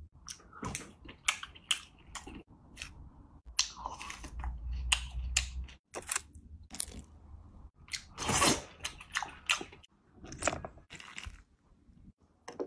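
Close-miked sounds of seafood being handled and eaten: a run of irregular crunches, clicks and chewing, one longer, louder crunch about two-thirds of the way in.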